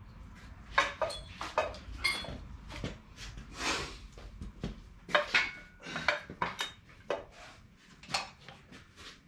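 Irregular metallic clanks and clinks, a few ringing briefly, as a turbocharger and its hardware are handled and held against the engine to be fitted.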